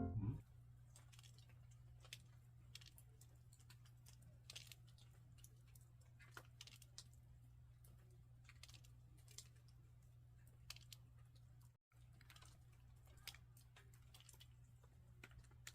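Near silence: faint, scattered small clicks over a low steady hum.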